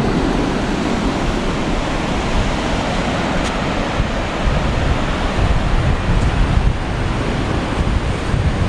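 Waves washing on a lakeshore with wind blowing across the microphone, a steady rushing noise with low buffeting.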